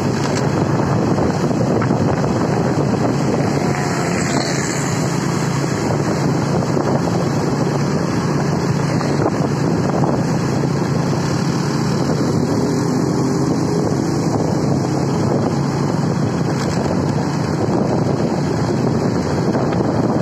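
Steady wind noise on the microphone of a moving motorcycle, with an engine droning underneath.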